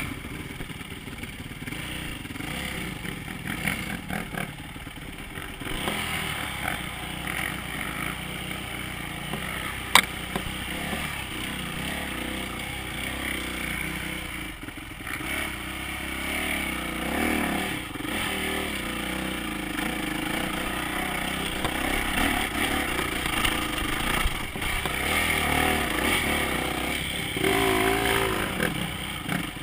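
Dirt bike engine running under riding load on a rough trail, its note rising and falling as the throttle is worked. There is a single sharp knock about ten seconds in.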